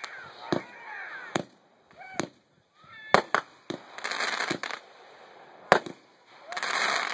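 Consumer firework cakes firing: about seven sharp bangs of shells bursting at uneven intervals, with hissing rushes of shots launching and crackling in between.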